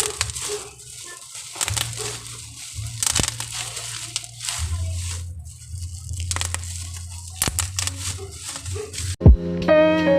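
Crinkling and crackling of packaging being handled, with scattered sharp clicks and taps over a low hum. About nine seconds in, plucked-guitar music starts.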